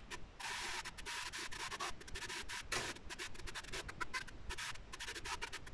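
Sliced mushrooms sizzling in a hot non-stick frying pan in a little fat: an uneven, crackling hiss that comes and goes in short spells.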